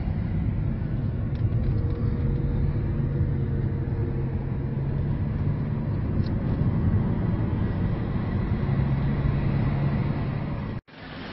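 Steady road and engine noise inside a moving car's cabin: a low rumble with a faint steady hum. It cuts out abruptly near the end, and a quieter, hissier background follows.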